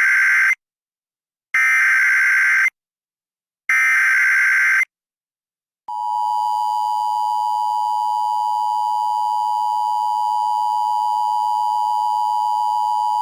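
Emergency Alert System SAME header: three roughly one-second bursts of screeching data tones. About a second after the last burst comes the steady two-tone EAS attention signal (853 and 960 Hz), which announces that an emergency alert message follows.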